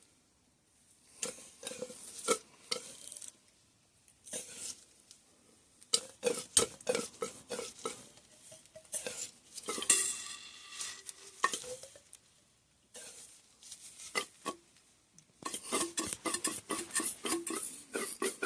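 RockShox SID suspension fork shaft being pumped by hand to drain its oil: bursts of rapid clicking, squelching and dripping as oil and air are forced out, with a longer pitched squelch about ten seconds in.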